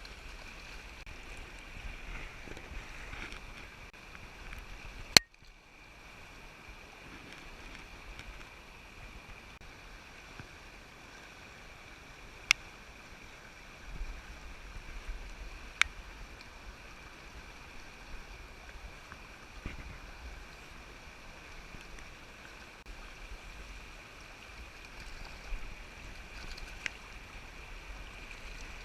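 Steady rush of stream water in the rain, with a few sharp clicks, the loudest about five seconds in and others around twelve, sixteen and twenty-seven seconds.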